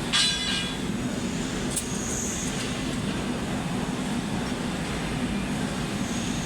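Steady rumbling noise of a running vehicle or machine, with a brief high squeal right at the start.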